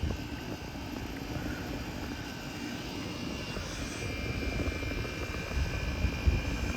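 1983 Gibson SlumberMaster window air conditioner running in cool mode: compressor and fan running with a steady low drone, and a faint high tone joining about four seconds in. A brief low thump comes near the end.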